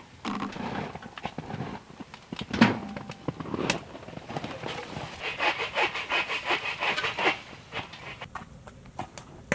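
A utensil knocking and scraping in a small pot on a tent woodstove as poached pike fillets are lifted out, with one sharper knock early on and a run of quick scraping strokes, about four a second, from about five to seven seconds in.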